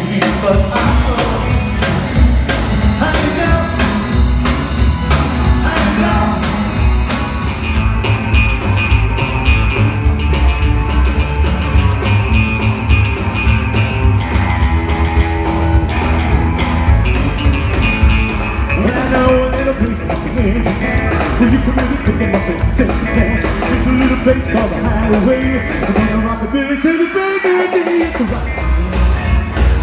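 Live rockabilly band playing a song with singing: upright bass, electric guitars and drums keep a steady beat. About three seconds before the end, the bass and drums drop out for a moment and then come back in.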